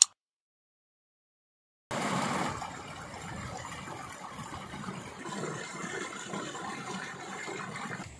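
Silence, then from about two seconds in a steady rushing of stream water pouring through a small stone culvert.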